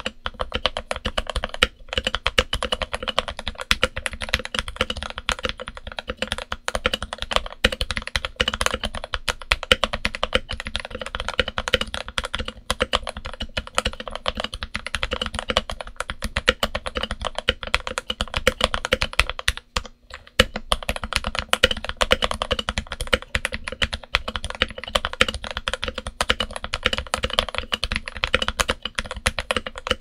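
Continuous fast typing on a Redragon K530 mechanical keyboard fitted with Gateron Milky Yellow switches and Cherry-profile PBT keycaps. It is dampened with switch pads and felt and neoprene foam. The rapid, dense keystrokes break off briefly about two-thirds of the way through.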